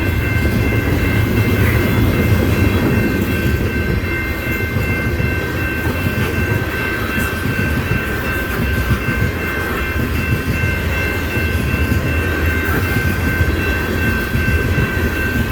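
Freight train cars rolling past with a steady low rumble. Steady high-pitched tones sound over it the whole time.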